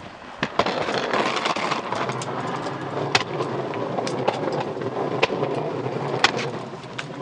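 Wheeled trash can loaded with leaves being rolled along a concrete sidewalk: a continuous rumble from the wheels, with a few sharp clacks spread through it.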